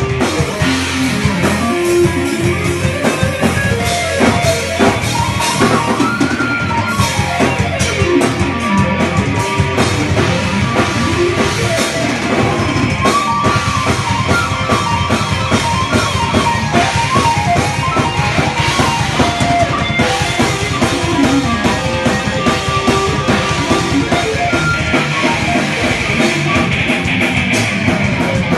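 Progressive power metal band playing live in rehearsal: drum kit with bass drum, electric guitar, bass guitar and keyboard melody lines, continuously loud.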